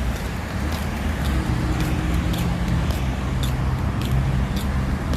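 Road traffic passing a pedestrian at the roadside, a steady low rumble of car engines and tyres, with regular footsteps ticking at a brisk walking pace, about two a second.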